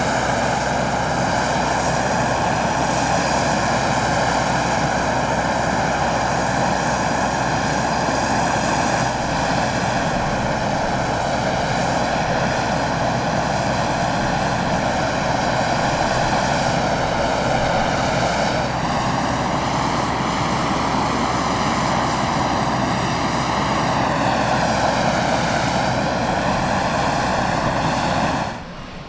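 Light-sport aircraft's piston engine and propeller running steadily at taxi power, a continuous buzzing drone. About two-thirds of the way in the pitch steps to a new note, and near the end it sags briefly and comes back up as the power is eased and added.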